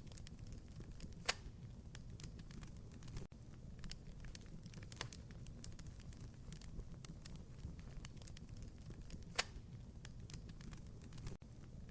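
Wood fire in a fireplace crackling, with a low, steady rumble of flames under a scatter of small clicks and two sharper pops, one about a second in and one near the end.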